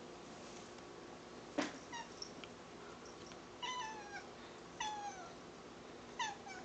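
Black cat making odd short calls likened to dolphin clicks: a sharp click, then three brief chirping calls about a second apart, each dropping in pitch.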